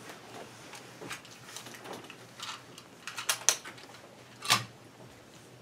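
Scattered short clicks and knocks, things handled on a table, with the loudest knocks about three and a half and four and a half seconds in.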